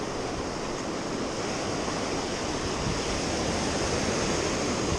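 Ocean surf breaking and washing up the beach at the waterline, a steady rush of waves that swells slightly in the second half.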